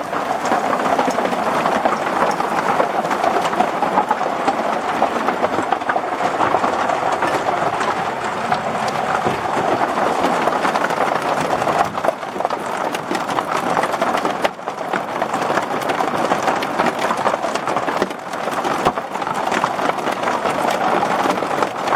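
Heavy rain pelting an RV's roof and walls, a steady dense patter of drops.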